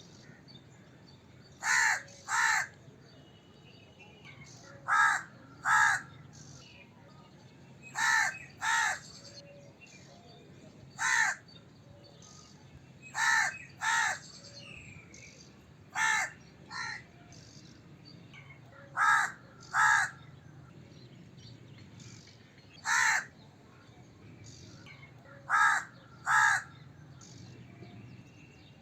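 Crow cawing: short, harsh caws, mostly in pairs, repeated about every three seconds.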